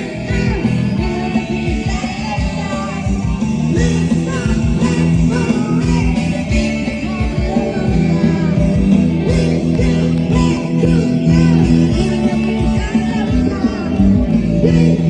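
Rock music with a singer, a prominent bass guitar line and drums hitting steadily.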